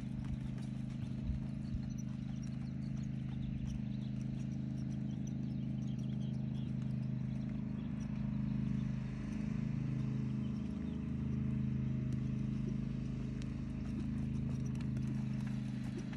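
Hoofbeats of a horse loping on soft arena dirt. Under them runs a steady low mechanical hum that dips in pitch briefly about nine seconds in.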